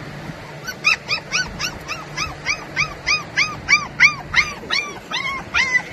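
Australian Shepherd puppy yipping in a rapid, high-pitched run of about four yips a second, starting just under a second in, each yip rising and falling in pitch.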